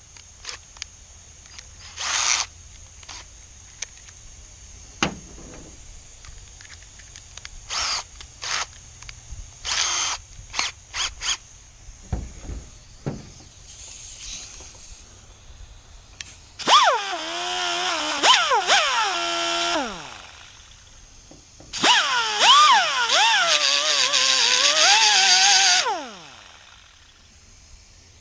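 Short clicks and rattles of handling, then a handheld power tool runs in two bursts of about three and four seconds, its whine wavering in pitch as its speed changes under load.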